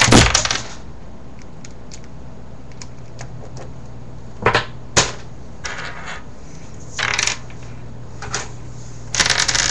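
Plastic pieces of a V-Cube 4 puzzle cube clattering on a tabletop as the cube pops apart under fast turning. The loud rattle dies away within the first second, followed by a few separate sharp clicks and short rattles of loose pieces being handled or knocked on the table.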